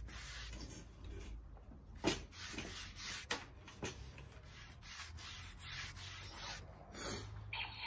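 Paintbrush bristles rubbing along a rough pallet-wood plank in repeated short strokes, brushing oil into the grain.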